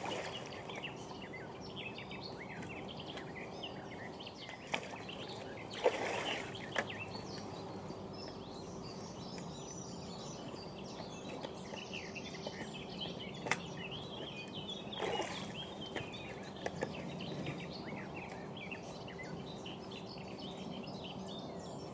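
Several small birds chirping and singing over a steady, faint outdoor background noise, with a few soft knocks along the way.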